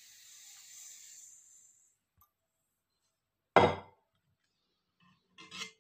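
Dry roasted semolina pouring into a steel plate with a faint grainy hiss that dies away. About three and a half seconds in comes a single loud clank of kitchenware, followed near the end by a few small knocks.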